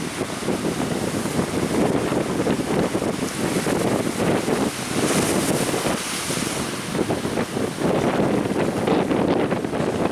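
Strong wind buffeting the microphone, with the rush of surf underneath; the noise is loud and gusty.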